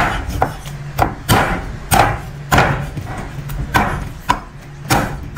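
A steel meat cleaver chopping raw chicken into pieces on a thick wooden chopping block: about nine sharp, irregular thuds, with a pause of about a second near the middle.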